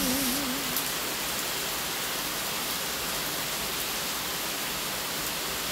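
Steady rain falling, an even hiss. The last wavering sung note of the music fades out within the first second.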